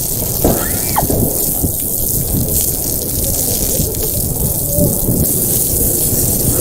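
Outdoor shower water spraying in a steady rush.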